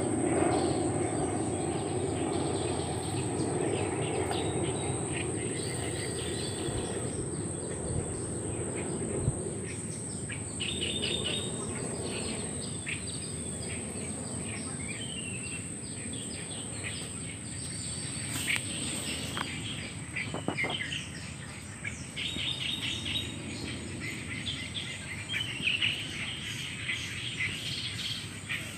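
Outdoor ambience of birds chirping in short, repeated bursts of calls, more often in the second half. Under it are a steady high-pitched whine and a low background hiss.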